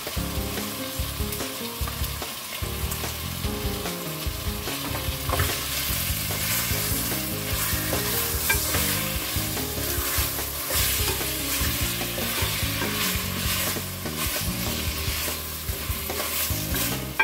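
Chicken pieces frying in oil in a pot, sizzling steadily, while a wooden spoon stirs and turns them against the pot.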